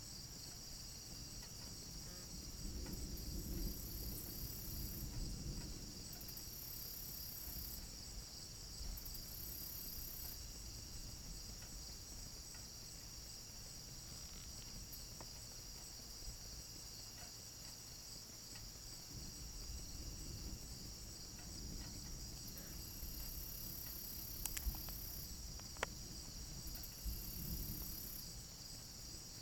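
Crickets chirring steadily in a high, continuous band. Low rumbles of distant thunder swell a few seconds in and again over the last third, with a couple of sharp clicks near the end.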